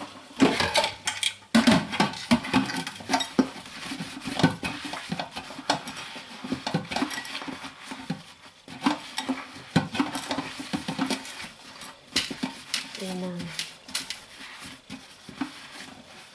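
Soapy sponge scrubbing a metal muffin tin in a stainless steel sink, with the tin knocking and clattering against the sink many times.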